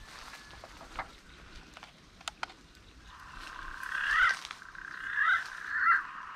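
An animal calls three times, about a second apart. The calls are the loudest sounds here, over a steady high drone that sets in about three seconds in. Two sharp clicks come a little before the drone.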